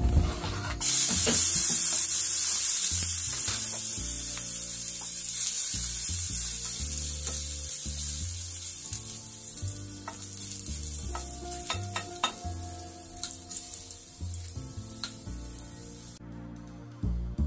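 Chopped garlic hitting a hot aluminium frying pan and sizzling, starting suddenly about a second in and slowly dying down, while a plastic slotted spatula stirs it with light scrapes and taps against the pan.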